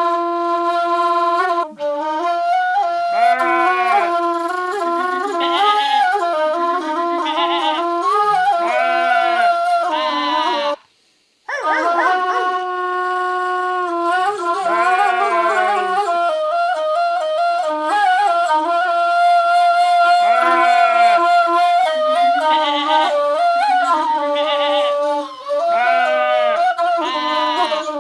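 Shepherd's kaval, an end-blown wooden flute, playing a held, slowly moving melody, with short animal calls imitated by voice and overdubbed at intervals. The music breaks off for a moment about eleven seconds in.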